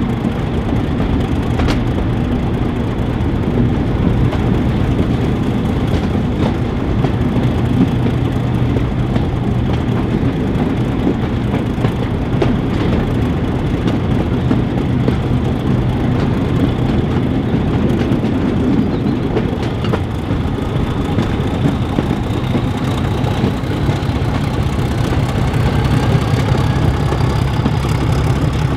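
Class 31 diesel locomotive hauling a train, heard from a coach window: engine running steadily under the noise of wheels on the rails. A whine rises in pitch over the last several seconds.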